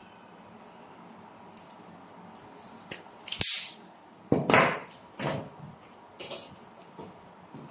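Jumlee automatic wire stripper being squeezed on a wire and then set down on the table: a run of sharp clicks and clacks, the loudest about three and a half and four and a half seconds in.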